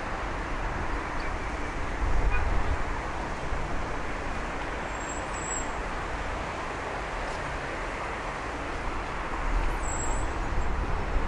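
Street traffic noise: a steady wash of passing road vehicles, with heavier low rumbles about two seconds in and again near the end.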